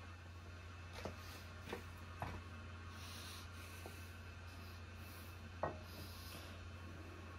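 Faint scraping and a few light knocks as a cast iron A-series cylinder head is handled and set onto a steel milling-machine table, the sharpest knock about five and a half seconds in, over a steady low hum.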